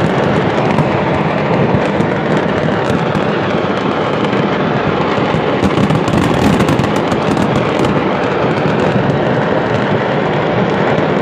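A fireworks market's stock exploding in a fire: a continuous dense barrage of crackling and popping fireworks, with a cluster of sharper bangs about six seconds in.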